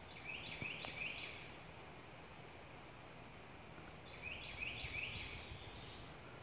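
Quiet outdoor ambience with a bird singing twice: each time a quick run of three or four rising-and-falling notes, once right at the start and again about four seconds in.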